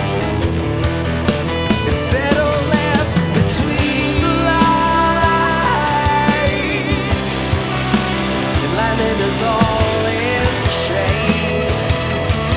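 Rock band playing live, an instrumental passage: a bending, wavering lead melody over steady bass and a regular drum beat.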